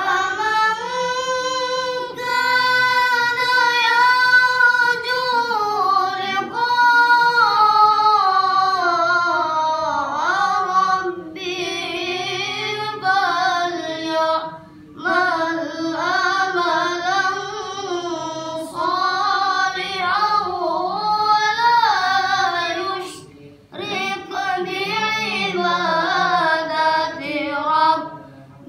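A child qari reciting the Quran in melodic tilawah style: one high voice drawing out long, ornamented phrases, broken by three short pauses for breath.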